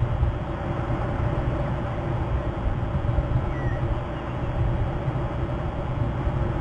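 Steady low rumble of wind on an outdoor nest-cam microphone, with a faint short bird chirp about three and a half seconds in.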